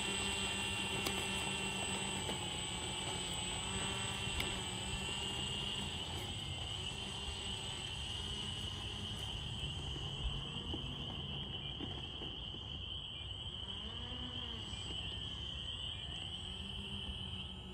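The twin electric motors and three-bladed propellers of a remote-control B-25 Mitchell model running with a steady high whine as it taxis over grass. The pitch rises and falls briefly a few seconds before the end.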